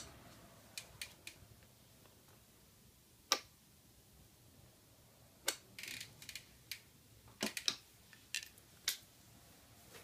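Scattered sharp clicks and knocks of a plastic fan heater being handled, lifted and tipped by its handle, then set back down. The loudest knock comes about three seconds in, with a busier cluster of clicks in the second half.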